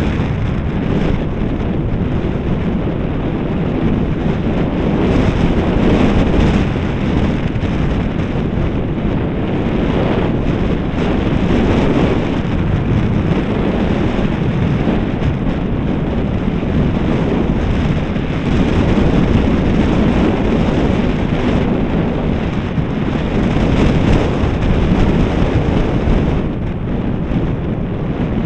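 Wind rushing over the microphone of a camera on a moving electric bike, a steady loud rumble that eases briefly near the end.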